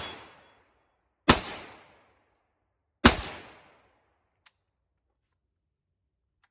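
Kalashnikov USA KR-103 AK-pattern 7.62×39 rifle firing single shots: two shots about 1.7 seconds apart, each dying away with a short echo, right after the tail of a previous shot. A faint click comes about a second after the last shot.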